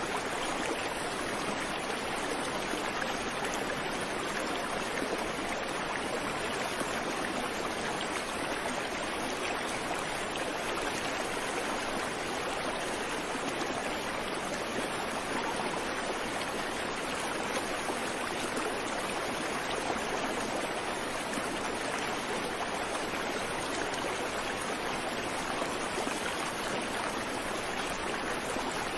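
Creek water flowing steadily over rocks, an even rushing babble with no birdsong.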